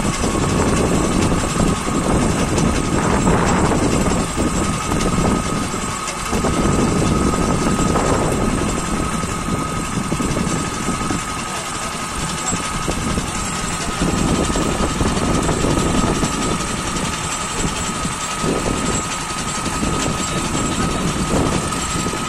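An engine running steadily, its low rumble swelling and easing every few seconds, with a steady whine over it.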